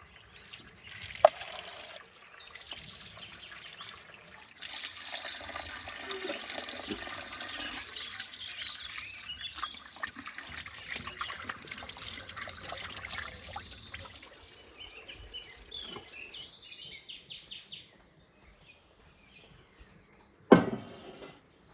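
Water running from an outdoor tap pipe over raw beef as it is rinsed by hand, splashing into a stone basin, after a sharp knock about a second in. Afterwards birds chirp, and near the end there is a loud thump as a steel bowl is set down on a wooden table.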